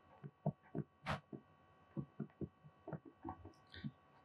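Faint, irregular knocks and taps of a stylus on a writing screen as handwriting is put down, about a dozen in four seconds, over a faint steady electrical hum.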